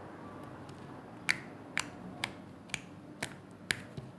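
Glitter slime being squeezed and pressed in the hands, giving off sharp popping clicks as air pockets burst. There are about seven pops, roughly two a second, starting just over a second in.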